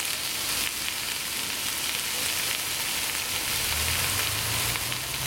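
Diced potatoes and onions sizzling as they sauté in a cast-iron Dutch oven: a steady frying hiss. A low hum joins about three and a half seconds in.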